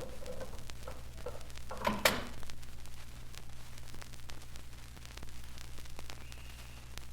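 Vinyl record surface noise: steady low hum with scattered crackle and clicks, and one short, sharp louder sound about two seconds in.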